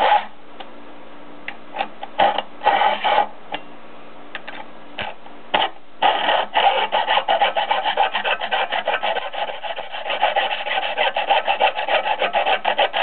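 A hand tool rasping on old metal model-train track. A few separate scrapes and clicks come first, then from about six seconds in a fast, continuous run of rasping strokes.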